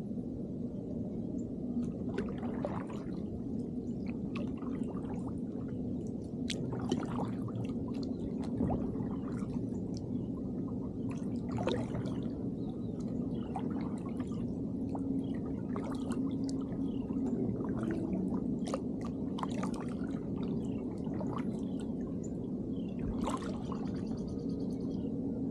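Double-bladed kayak paddle strokes: the blades dip and splash with trickles and drips of water every second or two, over a steady low hum.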